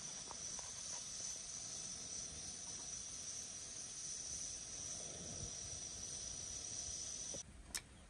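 Insects chirring steadily in a high, even tone, which cuts off suddenly near the end, followed by a single sharp click.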